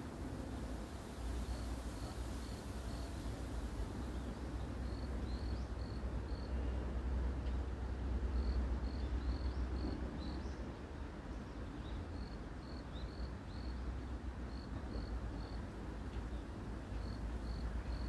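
An insect chirping outdoors, high short chirps in groups of three or four that repeat every couple of seconds, over a steady low rumble.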